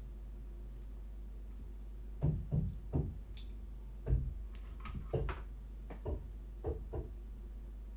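Irregular knocks and clicks from a power supply board and tools being handled on a workbench, starting about two seconds in, over a steady low hum.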